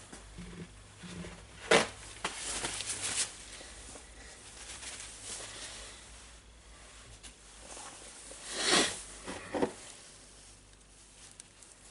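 Small metal tool parts handled on a workbench. A sharp click comes about two seconds in, followed by a short rattle of light knocks, then a brief scrape and two more clicks near the end.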